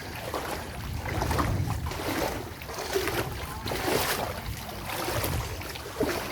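Wind buffeting the microphone over moving floodwater, with rushing surges about once a second.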